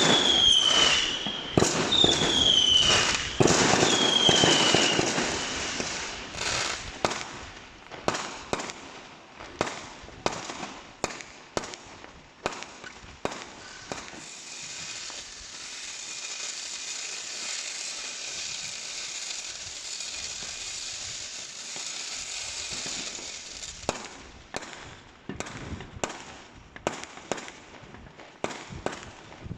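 Fireworks going off in a quick run of bangs and cracks, with four falling whistles about a second apart at the start. Around the middle the bangs thin out under a steady high hiss, then scattered bangs pick up again near the end.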